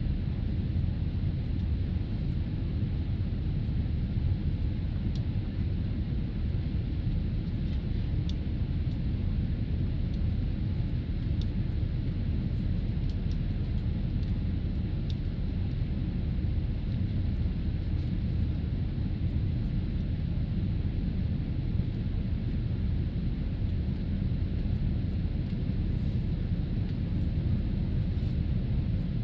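Steady, even rumble of cabin noise inside a Boeing 787 Dreamliner in flight: engine and airflow noise heard through the fuselage, deepest at the low end, with faint small ticks now and then.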